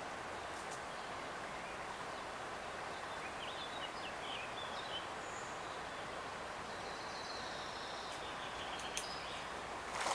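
River flowing steadily over riffles, with short bird chirps around the middle and a couple of faint clicks near the end.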